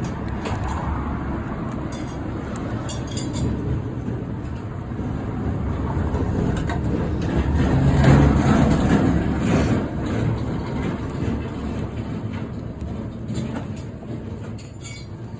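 Road traffic passing: a steady low rumble of vehicles, swelling as one passes loudest about eight seconds in.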